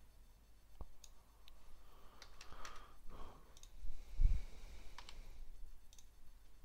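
Scattered computer mouse clicks and keyboard keystrokes, with a low thump about four seconds in.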